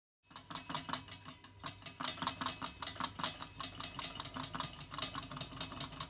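Stovetop kettle rattling: a fast, irregular clatter of metallic clicks over a low steady hum, starting abruptly just after the start.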